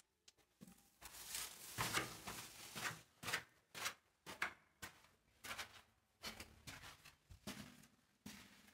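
Footsteps crunching on sand and grit over a concrete floor at a walking pace, a little more than one step a second.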